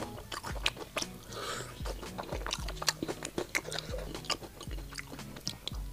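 Close-miked biting and chewing of crispy fried chicken skin, a rapid, irregular run of sharp crunches and wet chewing, with soft background music underneath.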